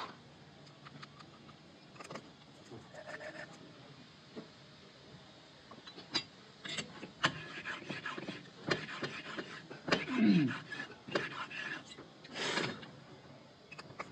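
Hand valve seat cutting on a Comet engine cylinder head: steel seat cutters and a pilot bar clink and scrape against the head, with irregular sharp taps that come thicker in the second half and a short falling squeak about two-thirds through.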